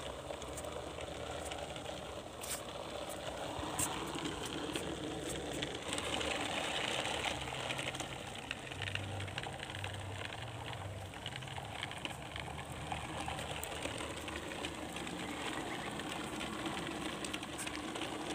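Small motor of a homemade cardboard toy truck whirring steadily as the truck drives along concrete.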